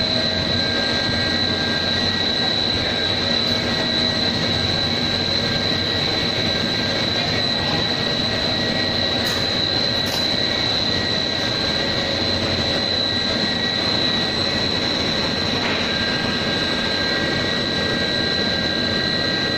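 Steady machinery noise of a running pet-chew extrusion production line, with a constant high whine over a broad mechanical hum.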